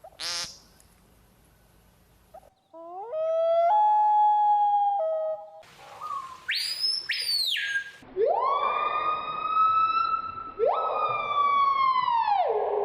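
A run of strange bird calls, each a pure, pitched sound: a short cry at the start, a stepped series of notes about three seconds in, and high whistles about six seconds in. These are followed by two long drawn-out calls that rise, hold steady and slide down at the end, like a siren.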